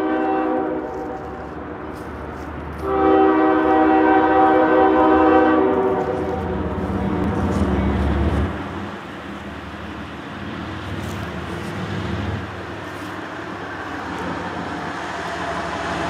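Freight train horn on an approaching GE diesel locomotive: one blast ending about a second in, then a longer, louder blast from about three to six seconds. After that the locomotives' diesel engines and wheels rumble steadily, growing louder as the lead units arrive.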